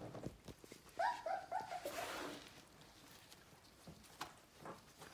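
A sheepadoodle puppy giving a quick run of short, high yips about a second in, the last one trailing off lower. A few faint taps follow.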